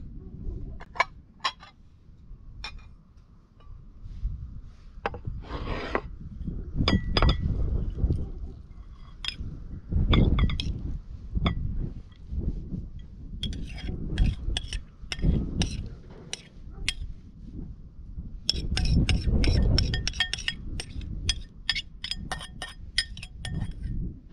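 Metal spoon clinking and scraping against a ceramic bowl as salad is spooned out onto a plate, with scattered single clinks and then quick runs of light taps. Wind buffets the microphone at times.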